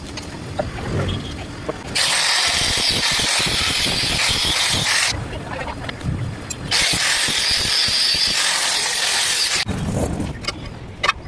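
Electric arc welding on steel: two bursts of steady crackling hiss, each about three seconds long, starting and stopping sharply, with a pause of a second or two between them.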